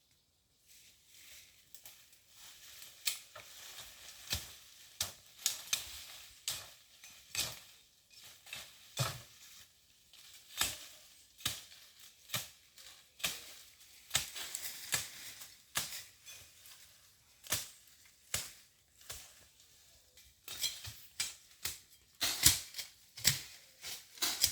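Machete chopping and slashing through brush and branches, with repeated sharp cuts coming irregularly about once a second and rustling vegetation between them.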